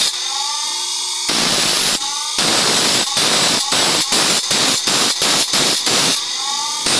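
Bench grinder's abrasive wheel grinding a steel blade in quick repeated strokes, about three a second, with short smoother stretches near the start and near the end.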